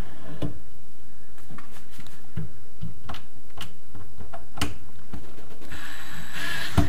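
Small clicks and knocks of metal parts being handled against a cabinet, then about six seconds in a cordless drill-driver runs for about a second, driving a self-tapping screw through a ball-bearing drawer slide into the cabinet side, ending in a sharp knock.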